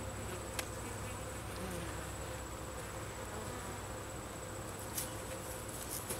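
Italian honey bees buzzing steadily around an open top-bar hive, with a couple of sharp clicks from a metal hive tool against the wooden top bars, one about half a second in and another near the end.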